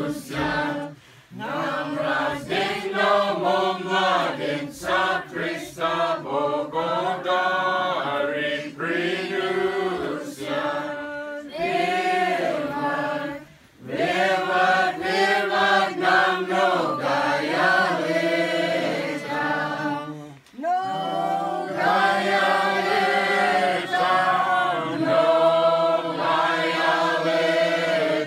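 A group of people singing an unaccompanied Orthodox Christmas carol in the Slaaviq starring tradition, in long phrases with a few short breaks between them.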